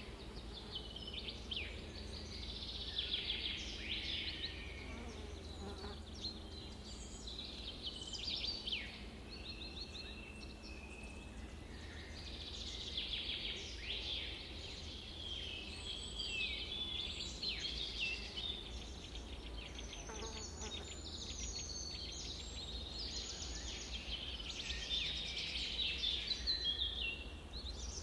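Several songbirds chirping and trilling together: many overlapping short calls, rapid trills and falling whistled notes, over a steady low hum.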